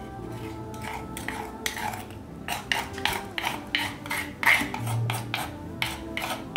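Wooden spoon scraping and knocking against the inside of a stone mortar, a quick run of short scrapes and taps as green mint sauce is scraped out, over soft background music.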